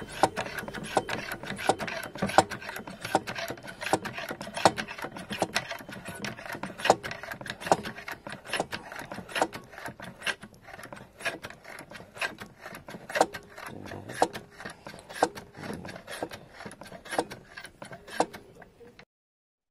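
Hand pump of a Sealey VS820 pressure brake bleeder being worked stroke after stroke, a series of sharp clicks and knocks about one to two a second, pressurising the fluid reservoir toward about 18–20 PSI. The strokes stop abruptly near the end.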